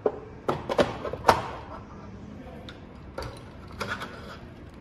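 Plastic-and-metal clicks and knocks as the cover of a T8 fluorescent batten fitting is unclipped and lifted off its base. The sharpest snap comes just over a second in, with a few lighter clicks around three to four seconds in.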